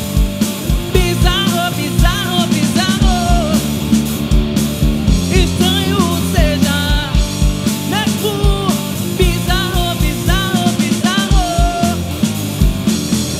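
Live rock band playing: a woman singing over distorted electric guitar, electric bass and a drum kit with a steady kick drum.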